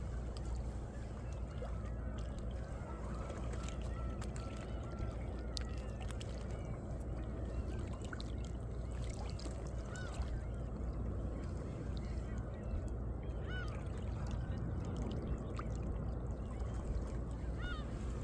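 Seawater lapping and sloshing in the crevices between coastal rocks, a steady wash with many small gurgles, drips and clicks throughout.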